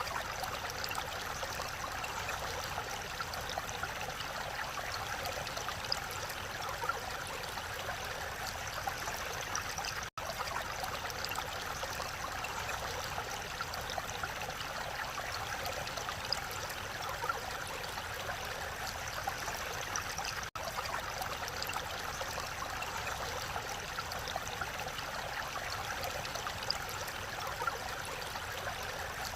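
Mountain valley stream flowing steadily, a constant even rush of water. It cuts out for an instant about ten seconds in and dips briefly again about twenty seconds in.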